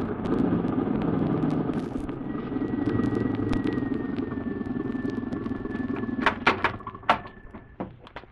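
Old radio-drama sound effect of a car engine running steadily, then dying away as the car pulls up. A few sharp clicks follow near the end.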